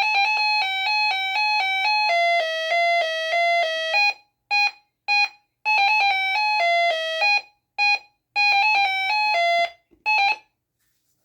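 Reecom R-1650C weather radio's speaker playing its sound-test alert tone: a rapid electronic beeping melody that steps between a few pitches in short phrases with brief gaps, stopping about ten seconds in.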